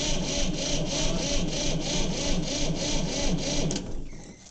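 A 1960 Massey Ferguson 200 tractor's diesel engine cranking on its starter motor from cold, with an even rhythm of about three to four compression strokes a second. It does not fire, and the starter stops about 4 seconds in; the owner puts the failure down to fuel.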